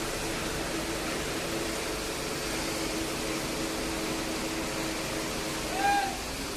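Construction machinery running steadily with a constant hum over a noisy background. Near the end comes a short pitched call that rises and falls, the loudest sound here.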